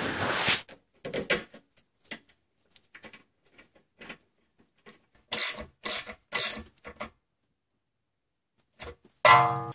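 Ratchet wrench with a socket extension clicking in short bursts while tightening the bolt that holds the brake-line bracket, with scattered small metal clicks between the bursts.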